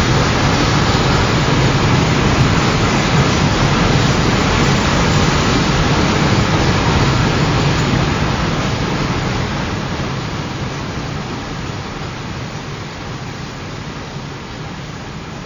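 Freight train passing: a steady, loud rumble of wheels on rail that fades gradually over the second half as the train moves away.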